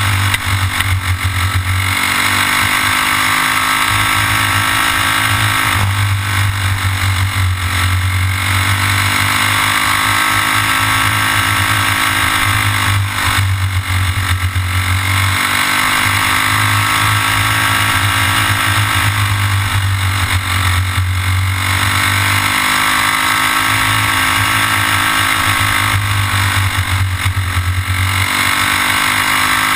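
Racing kart's single-cylinder engine heard from on board at race speed, revving high on the straights and dropping off five times as the kart slows for corners before climbing again. A low rumble comes and goes under the engine.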